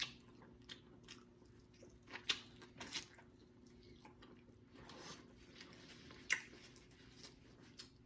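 Close-up eating sounds: chewing with scattered wet smacks and clicks as boiled neck bones are eaten, the loudest smack about six seconds in.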